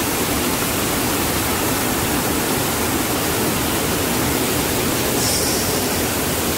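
Swollen, muddy river in flood after rain, rushing over rapids with a steady, even rush of water.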